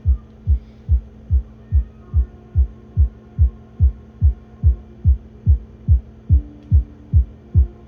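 Electronic music: a steady kick drum thumping about two and a half times a second under sustained low synth drones, with a new, higher held note coming in about six seconds in.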